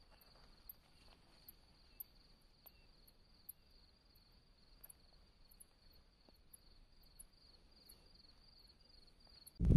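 Faint insect chorus: a steady, finely pulsing high cricket trill, with short, higher chirps about every second and a few faint ticks.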